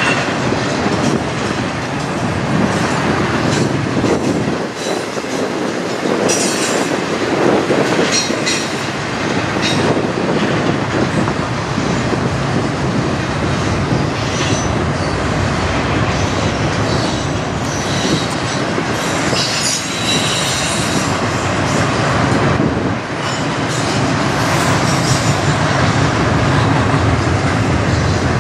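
Norfolk Southern double-stack intermodal freight train rolling past close by: a steady rumble and clatter of wheels on rail, with brief high-pitched wheel squeals now and then.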